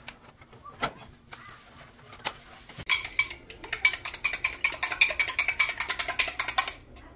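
Peaches frying in a hot cast-iron pan: a few light clinks, then about three seconds in a dense, fast crackle of sizzling that stops abruptly near the end.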